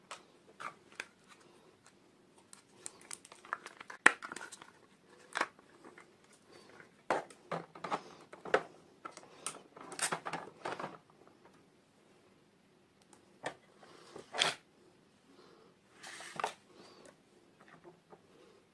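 Plastic toy packaging being handled, crinkled and torn open, with irregular rustles and sharp clicks, the loudest click about four seconds in.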